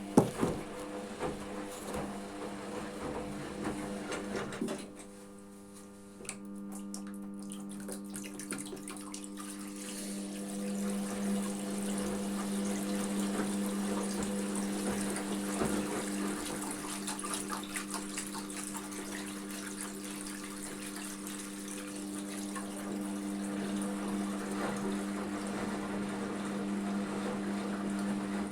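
Hotpoint washing machine in its rinse cycle: water rushing and splashing inside the machine over a steady hum, with a sharp click right at the start.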